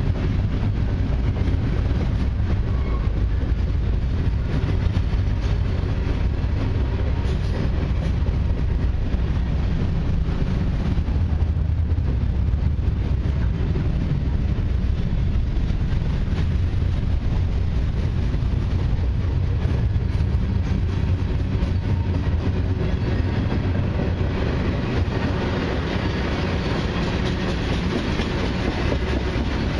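Long CN mixed freight train's cars rolling past, a steady low rumble with wheels clacking over rail joints; the high hiss of steel wheels on rail grows louder near the end.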